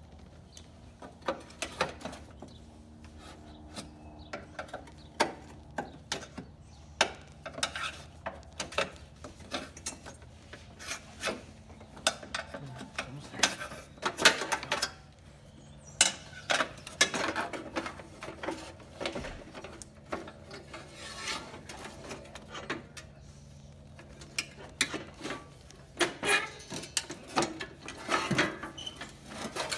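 Hand tools and metal parts clinking, knocking and scraping at irregular intervals while a riding mower is being taken apart, over a faint steady hum.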